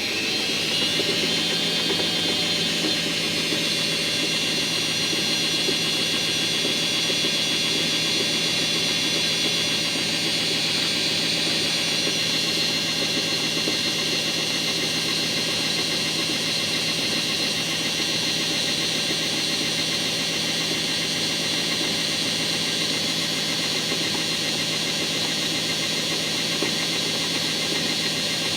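Washing machine drum spinning up. It finishes rising in pitch in the first second, then holds steady at speed, a running hum under a steady high-pitched whine.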